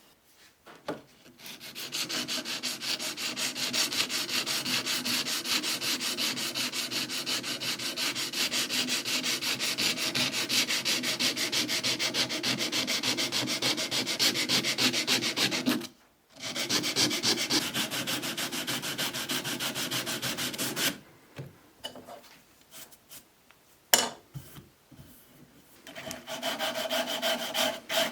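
Hand sanding with rapid, even back-and-forth strokes, likely on the wooden parts of an old hand plane being restored. It stops briefly about halfway through and again for a few seconds before starting again near the end.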